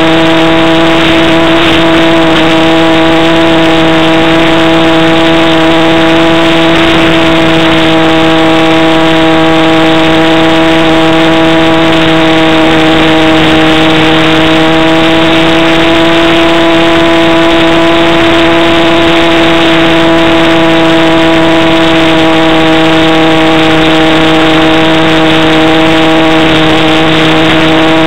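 A radio-controlled model Cessna's motor and propeller running in flight, heard close up and loud from a camera aboard the plane. It is a steady drone with one clear pitch, which sags and rises a little with the throttle.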